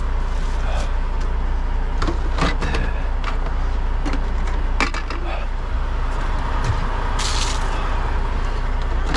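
Steady low hum of an idling diesel truck engine, with scattered clicks and knocks of items being handled and a short hiss about seven seconds in.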